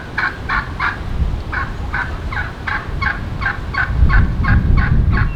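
Wild turkey giving a long, evenly paced series of yelps, about three to four a second. Wind rumbles on the microphone underneath and gusts louder near the end.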